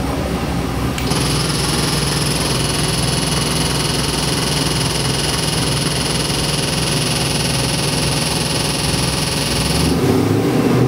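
LS3 376-cubic-inch V8 crate engine idling at about 1000 rpm on an engine dyno, with a steady high-pitched whine alongside from about a second in. Near the end the whine stops and the engine begins to rise in revs.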